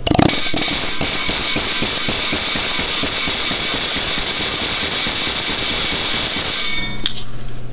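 Pneumatic air hammer firing a rapid, continuous string of blows through a punch bit against a broken steel bolt seized in an aluminum control arm. It runs steadily for about six and a half seconds and cuts off near the end, and the bolt does not budge.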